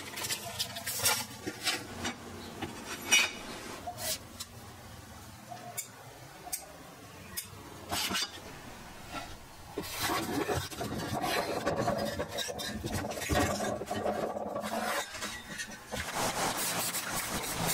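Paper and a thin steel sheet being handled: scattered clicks and taps, then a stretch of steady rubbing and rustling about ten seconds in as the paper template is smoothed onto the steel.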